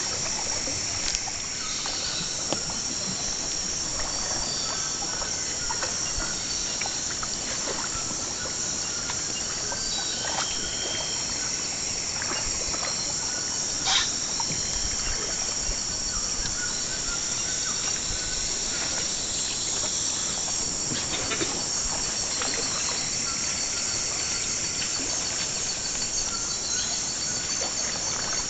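Rainforest insect chorus: a steady, high-pitched buzzing and trilling that never lets up. Short calls come and go over it, and there are a few sharp knocks, the loudest about halfway through.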